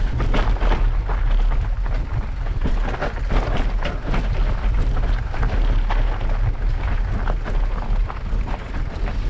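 Heavy wind rumble buffeting the microphone of an electric mountain bike rider, over a steady stream of clicks and knocks from the bike running over rough ground.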